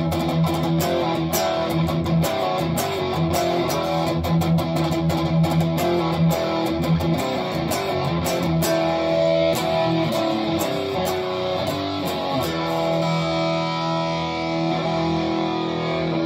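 Solar AB1.6TBS electric guitar on its bridge pickup, played through a Marshall JCM 800 amp overdriven by a Boss SD-1 pedal. Distorted riffing with fast picked notes, easing into fewer, longer held notes over the last few seconds.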